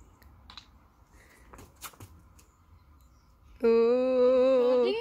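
A few faint clicks, then about three and a half seconds in a loud, long, steady vocal 'ooooh' held for over a second, jumping higher near the end: an exclamation at the cola foaming up out of the bottle after the Mentos go in.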